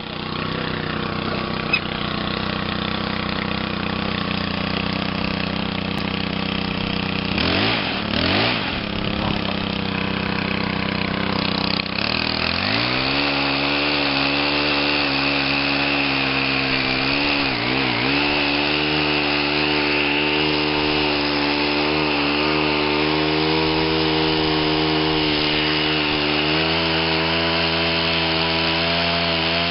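Two-stroke chainsaw running steadily. It revs up to a higher, held speed about twelve seconds in, and its pitch dips briefly a few seconds later.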